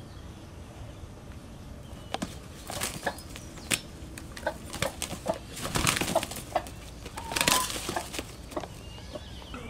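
Chickens beating their wings in a scuffle in a pen. Starting about two seconds in there are repeated flurries of flapping and scratching, loudest past the middle, with a short call near the end.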